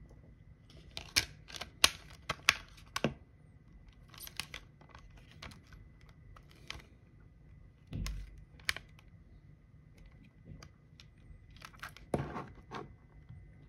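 Clicks and light rattles of a plastic CD jewel case being handled and turned over in the hands: a cluster of sharp clicks in the first few seconds, a soft thump about eight seconds in, and more clicks near the end.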